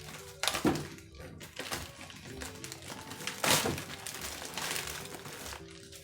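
Parcel packaging being torn and crumpled open by hand, in a few sharp rustling bursts, over faint background music.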